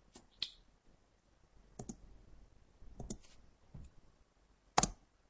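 Faint computer mouse clicks, several scattered single and paired clicks, the loudest one near the end.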